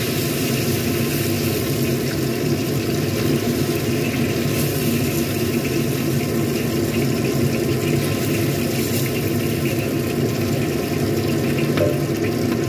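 Hot oil sizzling in a wok as fried tofu cubes are scooped out with a metal spatula, over a steady low hum.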